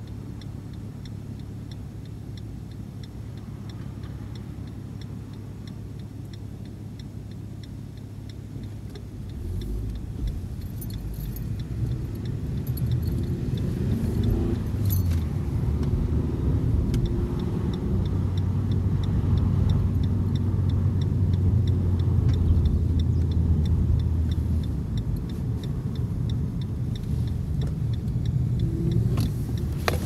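Car heard from inside the cabin: the engine idles at a standstill, then about nine seconds in it pulls away and accelerates, rising in pitch, and settles into a steady engine and road drone as the car drives on. A faint, regular light ticking runs underneath.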